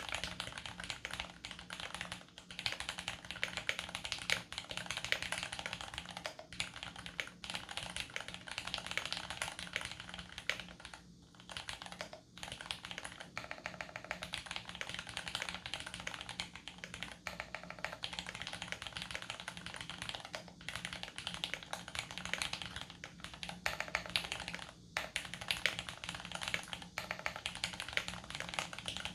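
Fast, continuous typing on a custom mechanical keyboard with lubed Cherry Vintage Brown tactile switches, an aluminium plate and GMK Honeywell keycaps, with a couple of brief pauses about a third of the way in.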